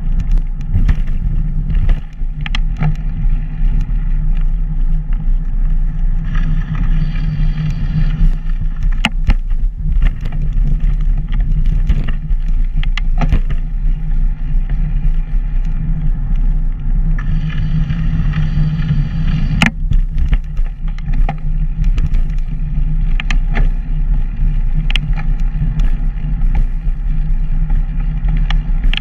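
Steady low rumble of wind buffeting and pavement vibration on a camera riding along a paved path, with scattered light clicks and knocks from bumps in the surface and two brief stretches of extra hiss.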